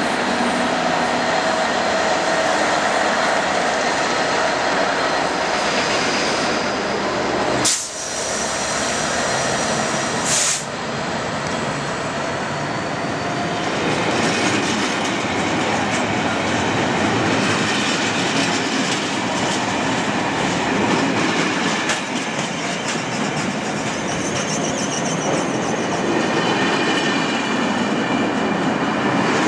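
Class 66 diesel-electric freight locomotive running close by at the head of an intermodal container train, with its wagons' wheels rattling and squealing on the rails. Two sharp knocks stand out about 8 and 10 seconds in.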